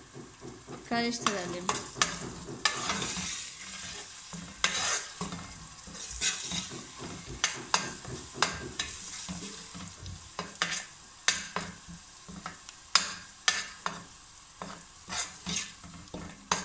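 A long metal spoon stirs and scrapes in a stainless steel pot, clinking irregularly against the sides and bottom. Underneath, the onion, tomato-paste and spice mixture fries in oil with a steady sizzle.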